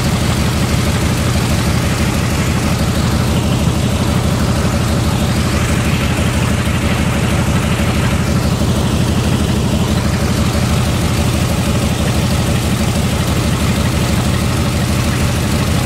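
Waco YMF biplane's radial engine running steadily at low power while the plane taxis, a fast, even low throb with a steady rushing hiss over it.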